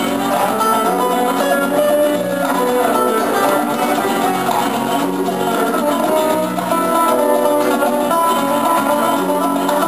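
Live band playing instrumental music: acoustic guitars picking a melody over a bass line.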